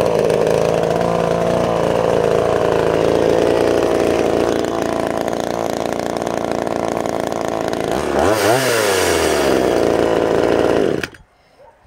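Villager VGS 260 one-handed chainsaw's small two-stroke engine running steadily, not cutting. About eight seconds in it is revved once, quickly up and back down, then it cuts off suddenly about a second before the end.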